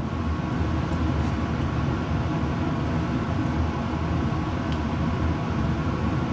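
Steady low mechanical hum and rushing noise, like a fan or motor running, with a few faint clicks of a spatula against the side of a stainless pot as the bisque is stirred.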